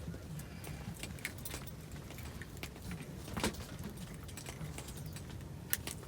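Scattered light clicks and small rattles of things being handled, with a sharper click about three and a half seconds in and another near the end, over a low steady hum.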